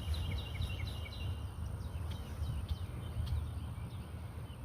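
Small animals chirping: a quick row of short high chirps in the first second, then scattered single chirps, over a steady low rumble.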